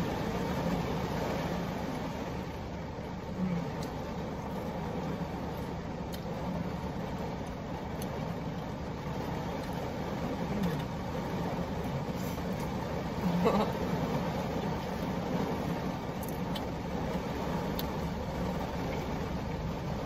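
Heavy rain pelting the roof and windows of a parked car, heard from inside the cabin as a steady hiss, with a few soft chewing and mouth sounds from someone eating fried cheese curds.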